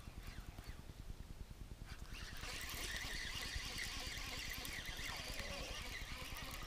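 Baitcasting reel being cranked to retrieve a lure, a steady whirring hiss that starts about two seconds in, over low rumbling from handling of the rod.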